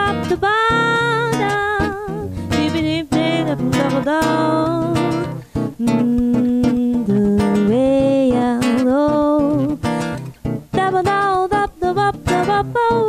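Live duo music: a woman singing a melody with long held and sliding notes into a microphone, over a strummed acoustic guitar.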